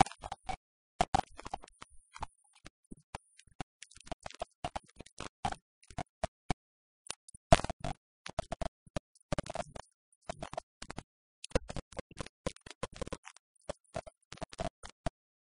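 Dense, irregular crackling: short clicks and pops in uneven clusters, starting abruptly out of dead silence.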